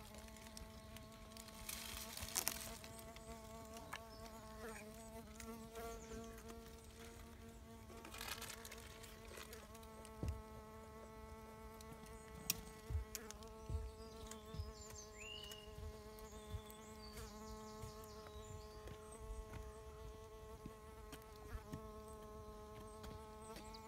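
Bee fly (Bombylius major) hovering, its wingbeat giving a faint, steady buzzing hum that wavers slightly in pitch.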